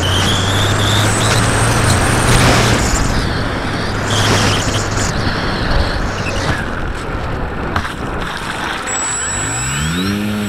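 Wind rushing over a radio-controlled model airplane's onboard camera as it glides low and settles onto a lake, with the steady hum of its propeller motor underneath. Near the end the motor's pitch rises and then falls as the plane moves on the water.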